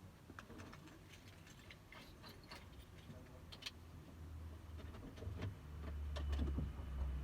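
Faint, irregular light clicks and taps, with a low rumble growing louder near the end.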